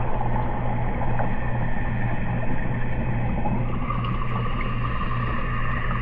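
Steady low machine hum, with a fainter higher whine joining about four seconds in.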